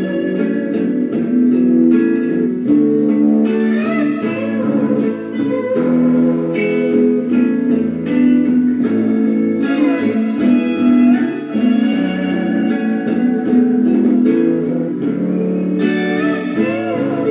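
Instrumental guitar music: plucked guitar notes over a steady chordal accompaniment, some notes bent in pitch, making up the instrumental break of a slow ballad.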